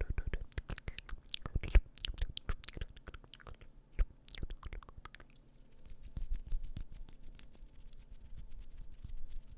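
Close-miked ASMR mouth sounds: a run of sharp clicks for about five seconds, then a denser stream of finer, quieter clicking.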